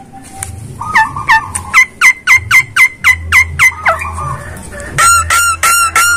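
Javan myna calling: a fast run of sharp, repeated notes, about four a second, then after a short pause a second run near the end.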